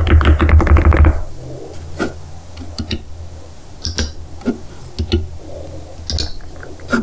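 Clicking mouse buttons on a Razer Viper Mini Signature Edition, a magnesium-alloy honeycomb eSports mouse: a quick clatter of clicks in the first second, then single sharp clicks, each a press and release, about once a second.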